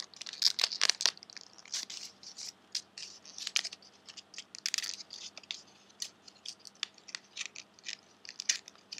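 Folded origami paper rustling and crackling in the hands as the last units' tips are tucked into their pockets, a run of short, irregular crinkles.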